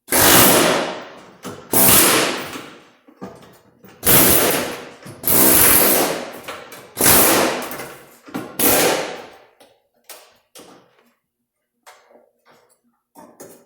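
Hammer blows on a steel rocker panel as it is knocked loose from the body after its spot welds are cut. Six heavy strikes about a second and a half apart, each with a ringing metal tail, then lighter taps near the end.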